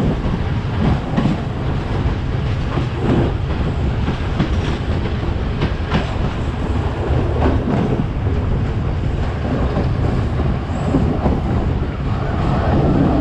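A train running along the track: a steady rumble with its wheels clacking over rail joints every second or two.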